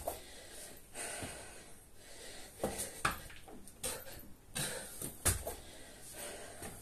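A man breathing hard from the exertion of burpees, with several thuds of hands and feet landing on a rubber floor mat; the loudest thud comes a little past five seconds in.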